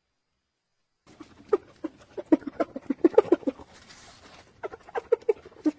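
Hyena giggling: a rapid series of short, chattering calls, several a second, starting about a second in after silence.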